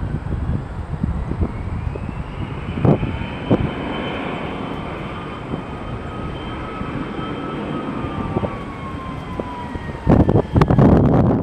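Airbus A320's jet engines whining as it lands, the engine tones rising and then falling in pitch as it goes by. Wind buffets the microphone throughout, in loud gusts near the end.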